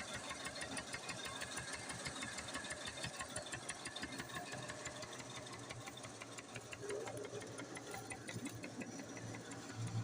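Coconut husk shredding machine running steadily with a fast, even clatter.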